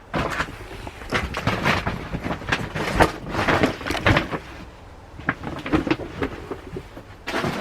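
Rummaging through stored belongings: irregular rustling, scraping and knocks as bags and boxes are shifted, with a couple of louder bumps about three and four seconds in.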